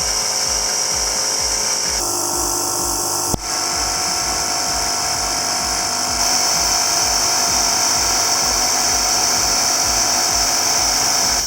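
Porter-Cable 6-gallon, 150 psi pancake air compressor running steadily with a high whine as its tank fills on a newly replaced pressure switch, with a sharp click about three and a half seconds in. Its motor stops right at the end, the sign that the new switch cuts the compressor off at pressure.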